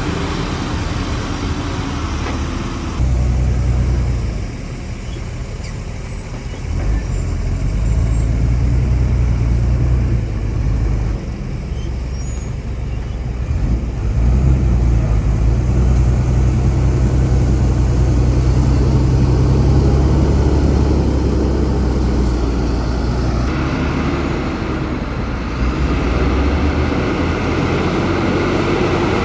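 Heavy diesel earthmoving machinery working: a deep engine note that swells and eases under load, with abrupt changes in the sound about 3 seconds in and near 23 seconds in.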